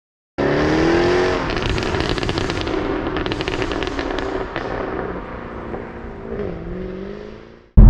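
Jaguar F-Type R's supercharged 5.0 V8 through its unmodified exhaust: the engine note falls as the revs drop, then a rapid string of pops and crackles on the overrun that thins out and fades. Near the end there is a softer engine note that dips and rises again.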